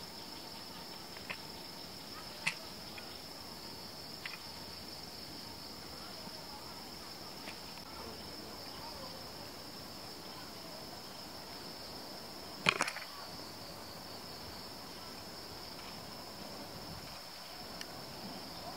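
Steady high-pitched insect chorus, with a few sharp snaps over it; the loudest snap comes about twelve and a half seconds in.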